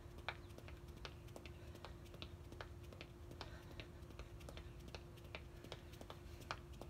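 Sneakers tapping on a concrete patio in a quick, even rhythm, about two or three light taps a second, as feet are tapped in and out of taped squares.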